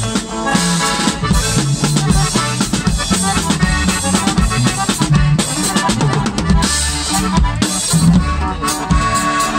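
A norteño band playing live, a button accordion over a drum kit beating a steady rhythm.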